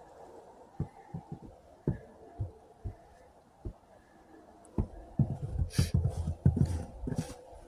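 Footsteps crunching in fresh, dry snow. A few soft, spaced steps come first, then louder, closer crunching with a crackle on each step in the last few seconds.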